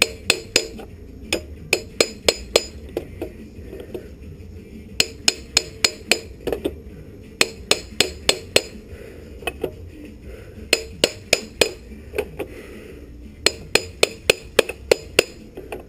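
A hammer striking the dented motorcycle exhaust to work it back into shape: sharp metallic taps in quick runs of several strikes with short pauses between.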